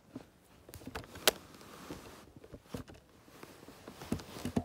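Handling noise: scattered clicks and knocks as a spiral-bound sketchbook and the camera are shifted about, with one sharp click about a second in.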